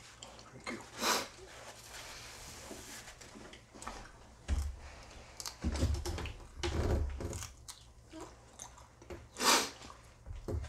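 A man chewing a piece of beef jerky, with low, irregular chewing sounds through the middle. There is a short sharp sound about a second in and a louder one near the end.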